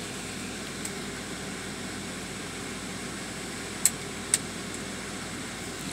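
Tascam DA-20 MKII DAT deck fast-searching its tape for the next track: a steady mechanical hum and hiss from the running transport, with two sharp clicks about four seconds in.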